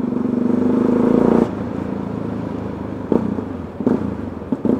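Motorcycle engine pulling at low speed, growing louder, then dropping off sharply about a second and a half in as the throttle is closed, and running on at a quieter note. A few short sharp knocks come near the end.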